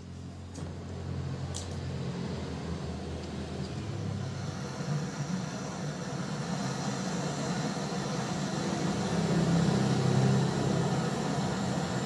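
Handheld gas torch burning with a steady hiss, its flame on the copper pipework at a refrigerator compressor to heat it for brazing. The hiss starts about half a second in and grows gradually louder, over a low hum.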